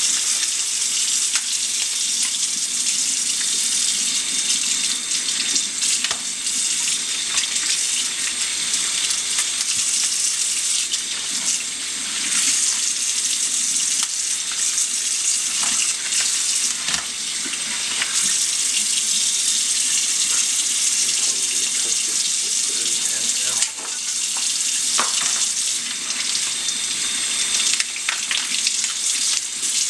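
Kitchen faucet running steadily into a sink, the stream splashing over crab pieces as they are rinsed by hand, with occasional brief clicks from the shell being handled.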